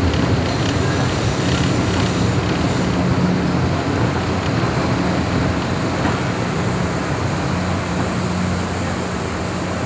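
Commuter train running and slowing into a station, heard from inside the passenger car: a loud, steady rumble with a low drone underneath, easing slightly toward the end.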